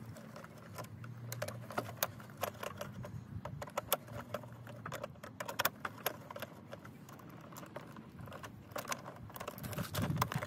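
A screwdriver loosening the terminal screws on a mechanical pool timer while the wire ends are worked free: a run of small, irregular metal clicks and scrapes.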